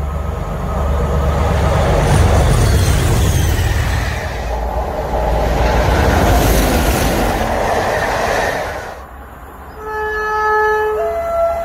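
Mainline diesel locomotives hauling a passenger train pass at speed, engines working hard over loud rail noise. About ten seconds in, the approaching class 47 diesel locomotive sounds its two-tone horn, a low note and then a held higher note.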